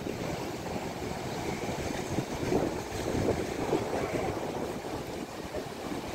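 Wind gusting on the microphone over choppy water, with small waves breaking and washing against a low shoreline.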